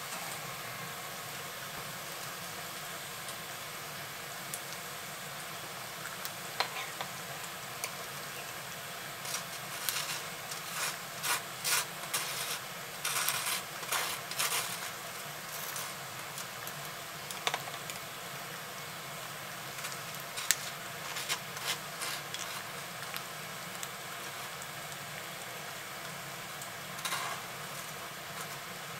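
Bacon sizzling steadily in a Lodge cast-iron skillet. Through the middle of it comes a run of short scrapes and clicks, a knife working on toast, with a few more scattered later.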